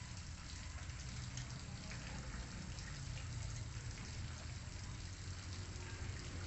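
Steady background hiss with a low rumble and faint scattered crackles.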